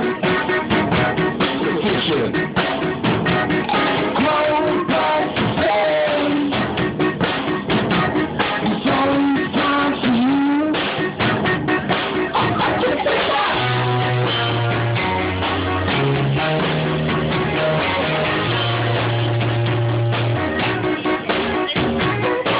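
Rock music with guitar, drums and a singing voice. In the first half a voice slides between notes; from a little past halfway a low bass line comes in, holding long notes.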